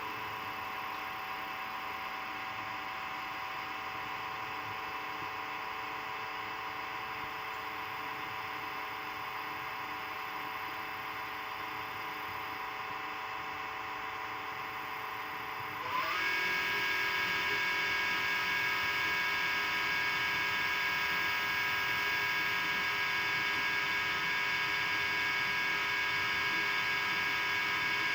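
An LG LDF5545ST dishwasher running its wash cycle with a steady mechanical whine from its faulty circulation pump assembly, the fault that a new pump case assembly cured. About halfway through, the pitch glides up and the noise kicks into full gear, much louder and higher, then holds steady.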